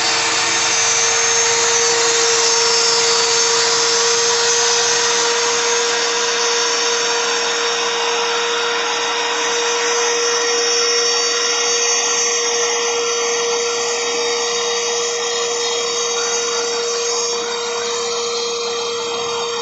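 CNC router spindle running and cutting PVC: a steady high whine over a continuous hiss of cutting.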